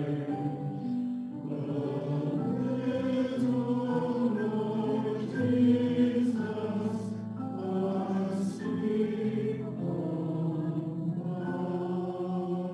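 Mixed choir of men and women singing in parts, moving through held chords, accompanied by a grand piano.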